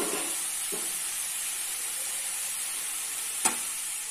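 Chopped bathua (chenopodium) greens sizzling in oil in a kadhai. A steel spatula scrapes the pan near the start, and there is a sharp clink near the end.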